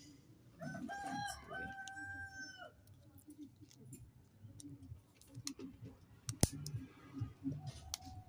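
A rooster crowing once in the background, one long call that starts about half a second in and lasts about two seconds. Scattered light clicks and taps from phone parts being handled, the sharpest a little past the middle.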